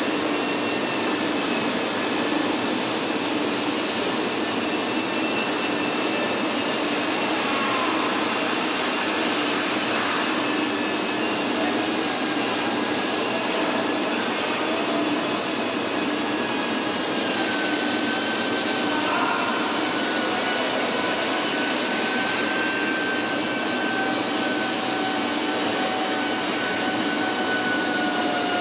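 Steady factory-hall noise in a truck assembly plant: a continuous hiss and hum of machinery and ventilation, with faint thin tones drifting slowly lower in pitch in the second half.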